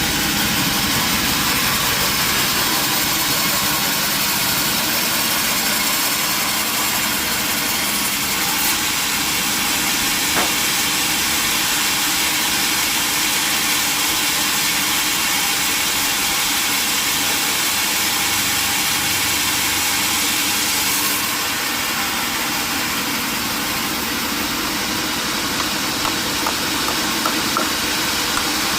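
Sawmill machinery running steadily with a hissing, engine-like noise. It drops slightly in level about two-thirds of the way through, and a few light ticks come near the end.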